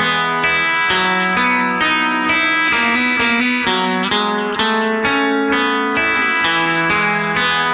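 Background music: a guitar picking a steady run of single notes, with effects on the tone.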